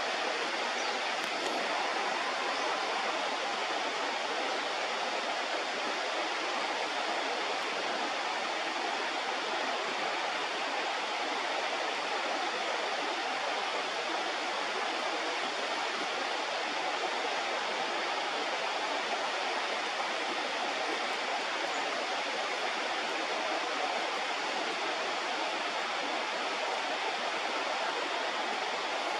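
Steady rush of flowing river water, an even hiss-like roar with no change throughout.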